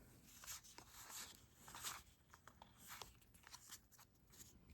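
Faint rustling and crinkling of Pokémon trading cards and their pack wrapper being handled, with small clicks as cards are shuffled through.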